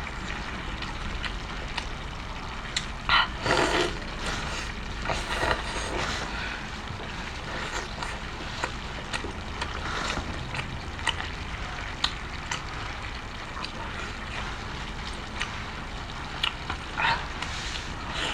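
Close-miked eating of boiled shellfish: scattered clicks and short smacking bursts of chewing over a steady low hum.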